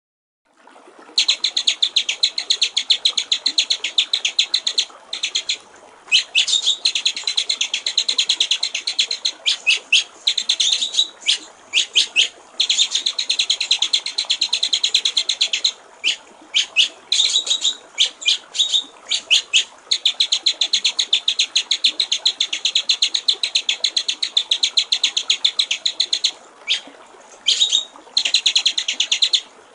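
White-rumped shama singing long runs of rapid, rattling repeated notes, broken by short pauses, over steadily trickling water.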